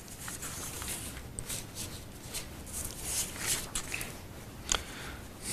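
Quiet hall ambience: a steady low hiss with scattered soft rustles and small clicks, with no single loud sound standing out.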